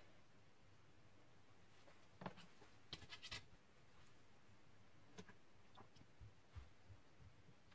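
Near silence, broken by a few faint clicks and scrapes of a slotted metal spatula against a porcelain plate as thin sheets of rice vermicelli are laid down. The loudest cluster of clicks comes about three seconds in.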